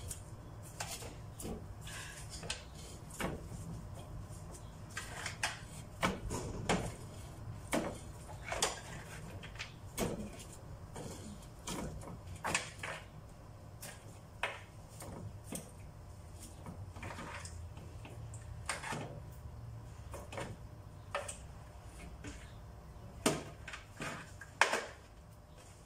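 Irregular soft knocks and clatter as pieces of boiled mutton are handled and set one by one into a large stainless-steel pot of layered rice and vegetables, with the metal roasting tray knocking now and then. The two loudest knocks come near the end, over a low steady hum.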